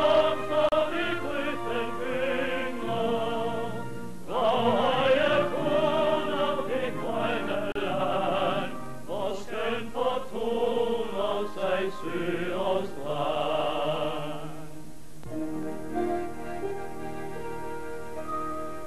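Classical-style music with an operatic singing voice carrying a wide vibrato over orchestral accompaniment. About 15 seconds in, the singing stops and softer, held instrumental notes carry on.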